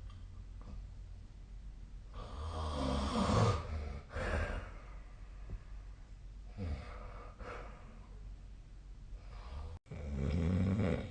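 A sleeping person snoring: a long, loud snore about two seconds in, a short one right after it, a weaker one past the middle, and another loud one near the end.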